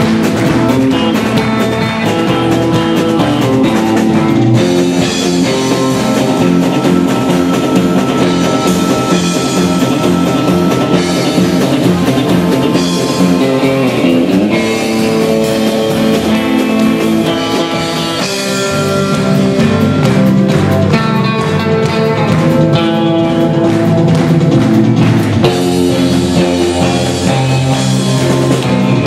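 Band playing an instrumental passage with guitar lead over drums, with no singing or calling.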